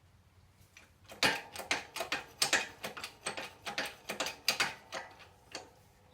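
A 20-ton hydraulic shop press being worked against a seized door-hinge pin: a quick, uneven run of sharp metallic clicks and knocks, about three to four a second, starting about a second in and dying away near the end.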